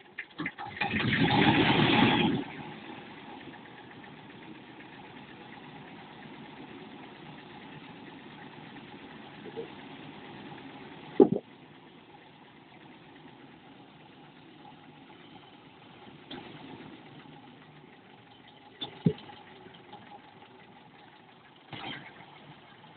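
Vladimirets T-25 tractor's two-cylinder air-cooled diesel running, loud for the first couple of seconds, then idling steadily. Two sharp knocks come through, one about halfway through and one later, with a few fainter ones.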